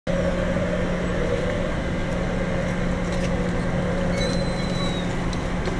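San Diego Trolley light-rail car standing at the platform with its doors open, giving off a steady electrical hum. A faint, short high whistle comes about four seconds in.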